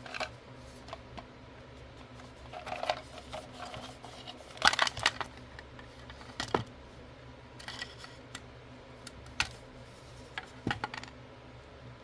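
Hard plastic toys handled by hand: irregular clicks and short rattles as a plastic clamshell toy house is unclipped and opened, the loudest clatter about five seconds in.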